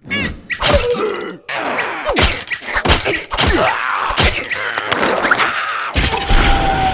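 Cartoon slapstick soundtrack: a rapid run of comic thuds and whacks mixed with the characters' wordless groans and squeals, and a low rumble near the end.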